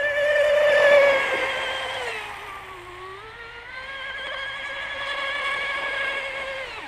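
Brushless electric motor of a Delta Force 29 RC speed boat whining as it runs across the pond under power, loudest about a second in. Its pitch dips around two to three seconds in and climbs back up.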